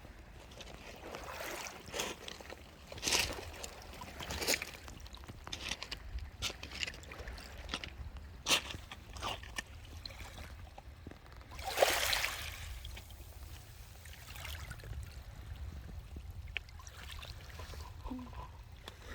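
Water sloshing and splashing at the seashore in irregular strokes, the loudest about 3, 8.5 and 12 seconds in, over a steady low rumble.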